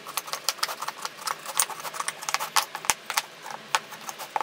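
Short redwood slats clacking and knocking against each other and the workbench top as they are handled and laid out: many quick, irregular wooden knocks, several a second.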